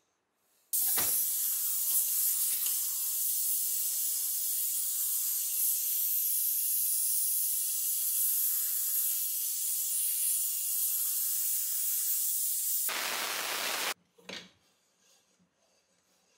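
Compressed-air blow gun hissing steadily for about twelve seconds, blowing dust out of a cast-iron vise's mechanism, then a louder, fuller blast for about a second before it cuts off suddenly.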